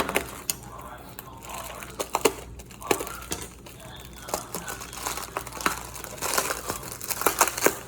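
Packaging being unwrapped by hand, crinkling and crackling in irregular snaps, busiest near the end.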